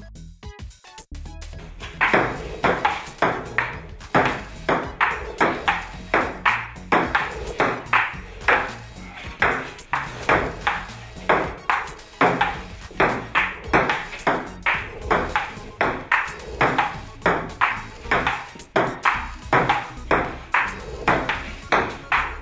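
A table tennis rally against a ping-pong robot: the ball clicking off the paddles and the table about twice a second in a steady back-and-forth, starting about two seconds in.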